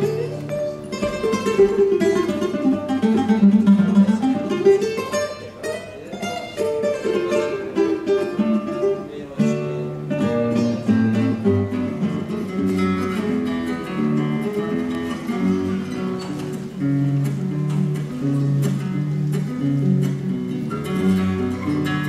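Solo nylon-string classical guitar being fingerpicked: a melody over plucked bass notes. In the first few seconds a fast run of notes goes down and back up.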